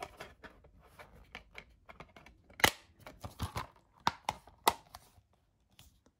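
Plastic DVD case being handled in its clear plastic protective sleeve: a run of clicks and light crinkling, with the loudest sharp click, typical of the case snapping shut, about two and a half seconds in, and a few more clicks a second or two later.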